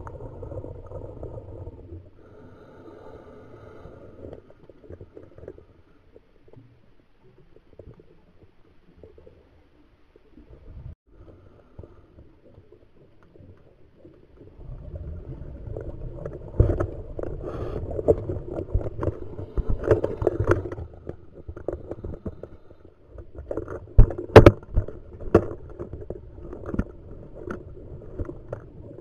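Underwater, a scuba diver's exhaled bubbles gurgle and rumble past the camera in long breaths, loudest from about halfway through and again near the end. A few sharp clicks come in the last stretch.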